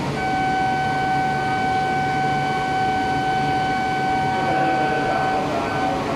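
A steady electronic warning tone, held for about five seconds and then broken into short beeps near the end, over a low steady hum: the departure warning on a shinkansen platform as an E4 series Max Toki stands ready to leave.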